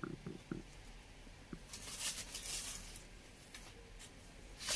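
Rustling as a saree is handled, in two spells: one about two seconds in and one near the end, with a few faint short low sounds at the very start.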